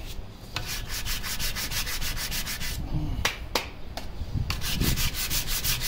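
Sanding block rubbed by hand in quick, even back-and-forth strokes over cured Bondo body filler on a cast-iron lathe gearbox housing, knocking the filler down smooth for paint.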